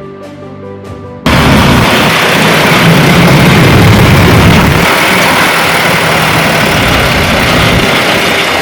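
Soft background music for about the first second, then an abrupt cut to a heavy vehicle's engine running loud and steady, with a strong low rumble.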